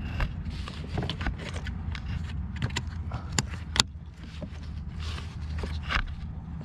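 Hands refitting plastic hoses and connectors on a diesel engine: a string of small clicks and knocks, the sharpest about three and a half and four seconds in, over a steady low hum.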